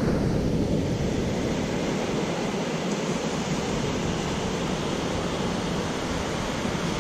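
Ocean surf washing onto the beach, a steady rushing noise, with wind rumbling on the microphone.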